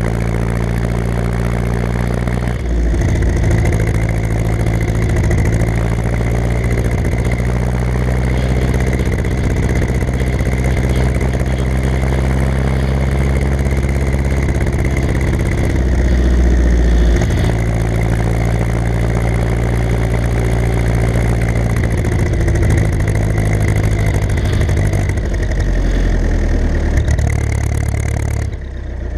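Ursus C-360 tractor's four-cylinder diesel engine running steadily, shifting in pitch about three seconds in and again around seventeen seconds, then easing off just before the end.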